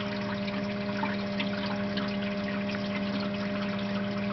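EcoTech Marine Vectra L1 aquarium return pump running at speed setting 3: a steady hum over a faint crackle of moving water. The owner judges it much noisier than such pumps usually are.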